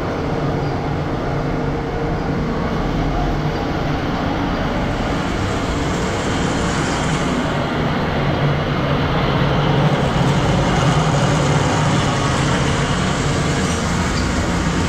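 Steady road traffic noise: a continuous rumble and hiss that swells a little about halfway through.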